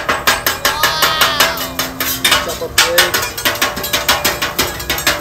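Metal hibachi spatula clacking and chopping on the steel flat top of a Blackstone griddle: a rapid, irregular run of sharp metal-on-metal taps, about three to four a second, as the rolled egg is cut up next to the rice.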